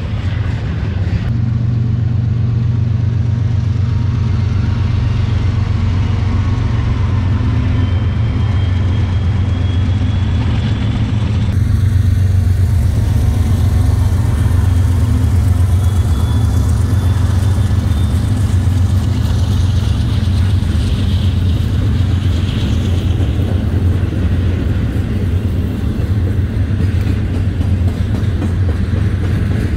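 Diesel locomotives leading a double-stack container train pass close by with a steady, loud low engine drone, followed by the stack cars rolling past.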